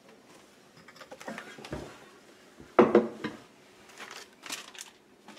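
Casserole dishes knocking and scraping against each other and the wooden shelf as they are stacked in a cabinet, with a handful of separate knocks and the loudest about three seconds in.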